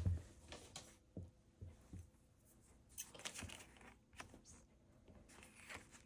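Faint handling sounds: a few light taps, then soft rustling, as a fabric pouch and its tag are handled with scissors.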